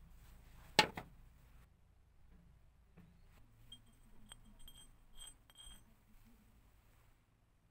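A sharp click about a second in, then a run of light metallic clinks with a ringing tone: a toothed steel valve seat cutter knocking and scraping against an oil stone as it is sharpened by hand.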